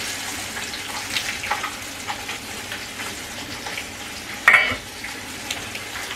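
Chicken browning in a frying pan: a steady sizzle with small clicks of the pan and utensils. About four and a half seconds in, a metal pot lid clinks with a short ring as it is set on the pot.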